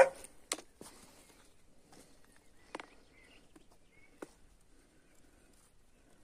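A handful of short, sharp knocks, the loudest right at the start and softer ones near three and four seconds in. Faint bird chirps sound in between.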